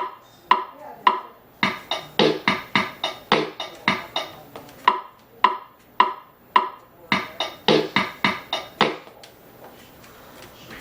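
Casio MT-520 electronic keyboard being played: a run of short, plucky notes with sharp attacks and quick decays, about two or three a second, stopping about nine seconds in.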